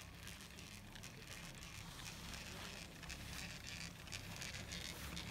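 Wind rumbling unevenly on a phone's microphone during a chairlift ride, with a faint crackling rustle over it.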